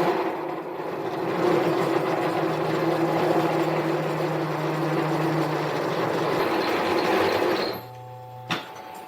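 Harbor Freight mini lathe running with a cut in progress: a steady machine noise with a constant tone. Near the end the noise drops away to a quieter steady hum, and there is one click.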